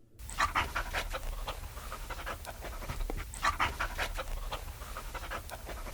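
A dog panting rapidly and steadily, short quick breaths in an even rhythm.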